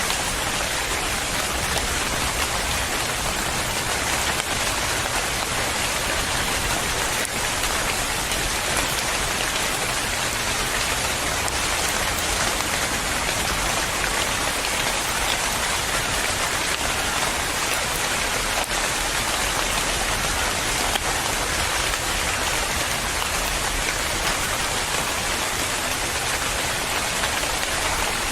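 Steady rain falling and pattering on a surface, an even hiss with no change in strength.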